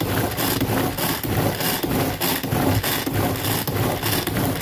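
Tupperware Power Chef pull-cord food processor whisking eggs: the cord is pulled again and again, about three strokes a second, each stroke a rasping whirr of the spinning whisk paddle.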